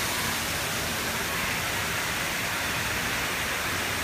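Steady rush of water running down a water slide and pouring out of its end into a pool, an even noise with no clear splash standing out.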